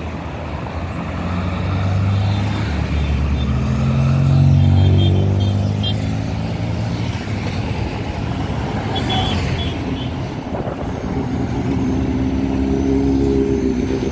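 Engines of classic cars running as the cars drive past one after another at slow parade pace, the nearest and loudest pass about four to five seconds in and another building near the end.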